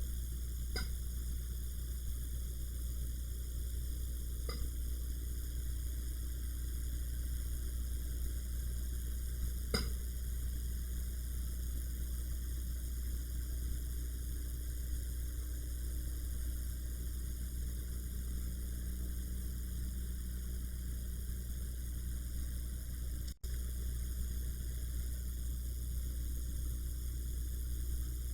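Steady low electrical hum with faint hiss, broken by a few faint clicks, three of them in the first ten seconds.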